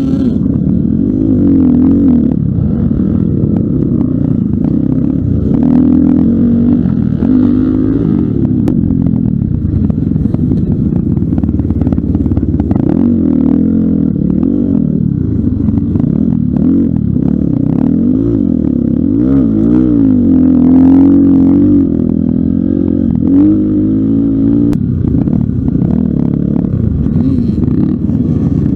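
Pitster Pro LXR250f dirt bike's 250cc four-stroke single-cylinder engine heard close up while being ridden hard. The engine note climbs and drops over and over as the throttle is worked, with rough rattling and clatter over it.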